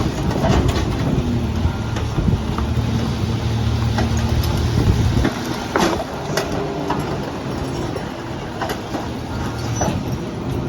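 CNG split rear-loader garbage truck running at a steady, loud level, its low hum dropping off about halfway through. Scattered sharp knocks and clanks sound over it.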